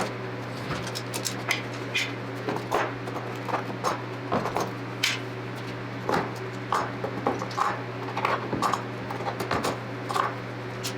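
Clamps being taken off epoxy casting molds: irregular clinks and knocks of metal clamps being loosened and set down, over a steady low hum.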